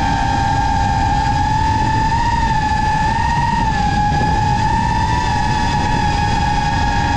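FPV quadcopter's motors and propellers whining at a steady high pitch that wavers slightly up and down with throttle, over a low rumble.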